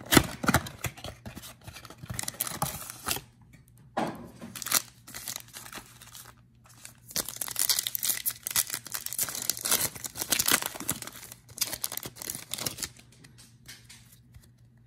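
A cardboard trading-card blaster box torn open, then the wrapper of a card pack crinkling and tearing open over several seconds, with quieter rustling as the cards are handled near the end.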